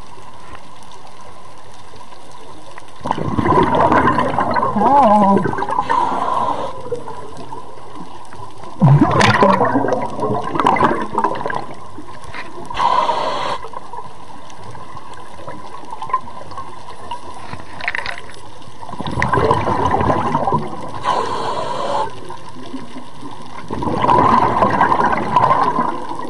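Scuba diver breathing through a regulator underwater: bubbly gurgling bursts of exhaled air about every four to six seconds, with a steadier hiss between breaths.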